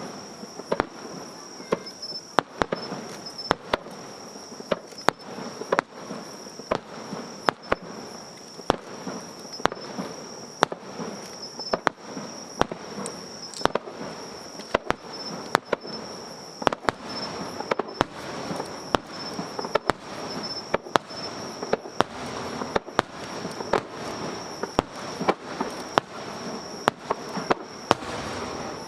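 A fireworks display with shells bursting in quick succession: sharp bangs about one or two a second, with crackling and rumbling between them. A steady high-pitched tone runs underneath.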